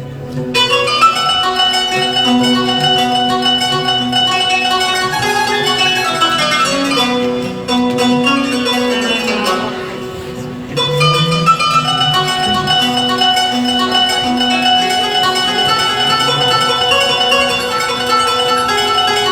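Instrumental music on plucked string instruments, a run of held and plucked notes that eases off briefly a little before halfway, then comes back in.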